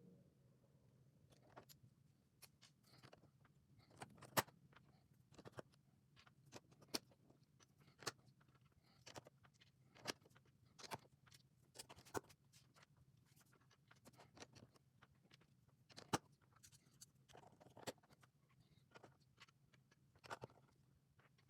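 LEGO pieces clicking and clacking as they are handled and pressed together: sharp separate clicks at irregular intervals, about one or two a second, over a faint steady low hum.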